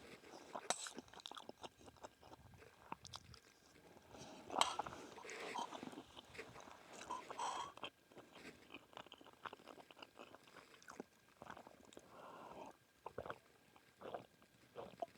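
A person chewing food close to the microphone: irregular short clicks and mouth noises.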